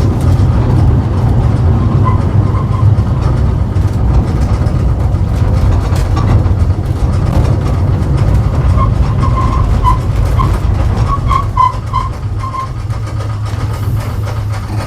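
Vintage tram running along its track: a steady low rumble from the wheels and running gear, with short high-pitched squeaks about two seconds in and a cluster of them in the latter half.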